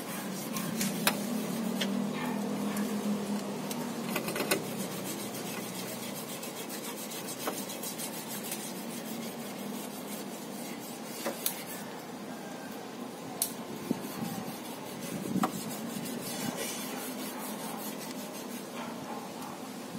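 A toothbrush scrubbing oil onto the rubber window seals of a car door: a continuous rasping rub, broken by scattered light clicks and knocks.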